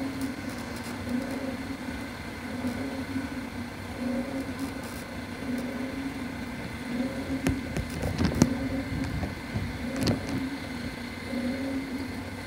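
A steady motor hum that swells and fades about every second and a half. A few sharp knocks come about eight and ten seconds in.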